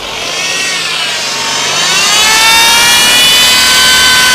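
BMW 8-speed automatic gearbox (ZF 8HP) whining as the engine is revved to about 2500 rpm: a shrill, very loud whine that rises in pitch over the first two seconds, then holds steady. The mechanic traces the noise to the oil pump inside the transmission.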